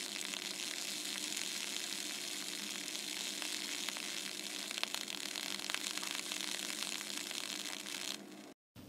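CO2 laser burning into a plastic bottle of bubble solution: a steady hiss over a low machine hum, with scattered faint crackles, cutting off near the end.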